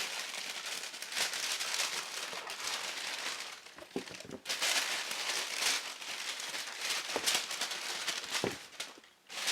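Packaging paper crinkling and rustling as it is handled during a shoe unboxing, in uneven stretches with short lulls about four seconds in and near the end.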